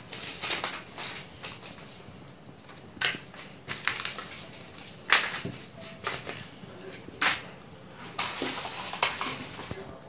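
Paper and cardboard packaging rustling and crinkling as a leaflet, card and small box are handled, with a few sharp clicks, the loudest about five and seven seconds in.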